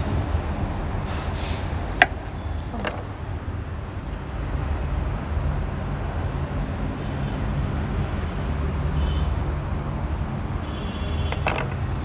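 Knife cutting through a ripe papaya on a wooden cutting board, with one sharp tap about two seconds in and softer knocks later, over a steady low rumble.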